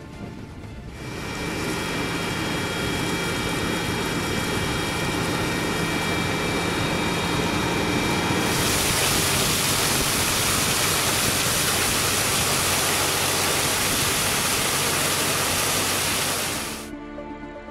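A tractor engine running steadily while water sprays from a hose outlet onto grass. About eight seconds in the hiss of the spraying water becomes much louder and covers the engine, then the sound stops abruptly near the end.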